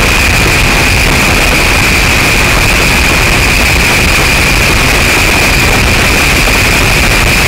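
Loud, steady rushing noise of wind on the microphone and road noise from a moving vehicle, with a constant high hiss on top.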